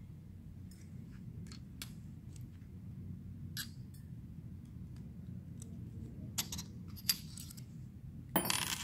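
Light metallic clicks and clinks, scattered and irregular, as the steel gears and washers of a five-speed motorcycle gearbox are handled and slid along its splined countershaft. A louder burst of handling noise comes near the end.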